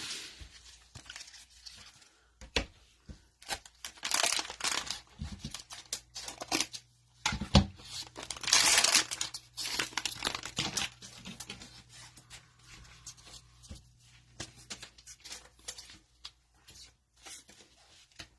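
Cellophane wrapper of a football card cello pack torn open and crinkled, with two loud rips at about four and nine seconds and light crinkling and clicks of handling between them.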